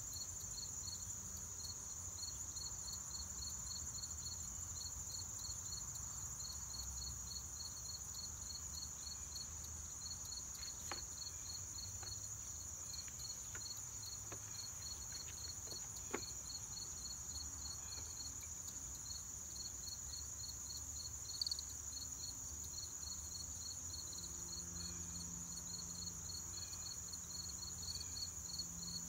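Insects chirping outdoors: a steady high-pitched drone with a regular run of quick chirps over it. A few faint taps come through about midway.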